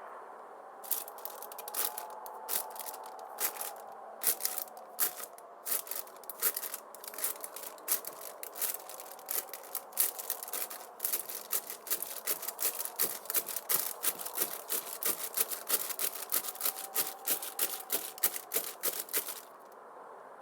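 Many irregular sharp clicks and snaps, sparse at first, then coming thick and fast, and stopping shortly before the end. Under them runs a faint whistling tone that slowly rises and falls.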